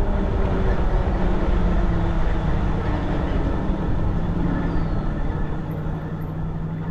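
Wind and road noise of an Ariel Rider Grizzly e-bike cruising, with a steady low hum from its rear hub motor. The noise grows gradually quieter toward the end.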